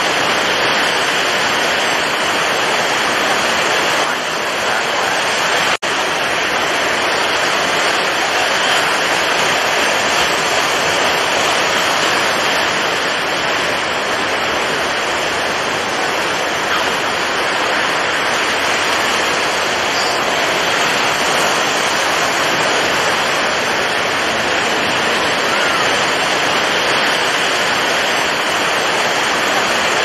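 Steady rushing noise of a storm-whipped sea, with waves and surf breaking. It drops out for a split second about six seconds in.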